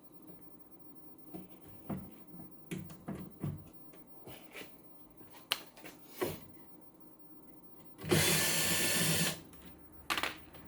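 A power drill running in one steady burst of about a second and a half, about eight seconds in, the loudest sound here. Before and after it, scattered light clicks and knocks.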